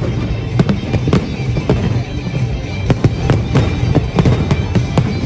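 Aerial fireworks shells bursting in a dense, irregular series of sharp bangs, about two to three a second, over music playing underneath.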